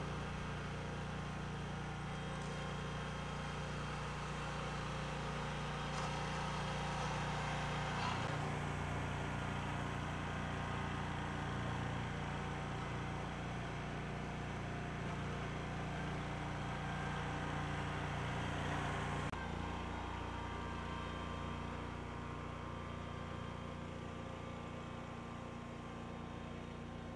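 Asphalt roller's engine running steadily while it compacts a hot asphalt patch, a constant low hum whose tone shifts abruptly about eight and nineteen seconds in.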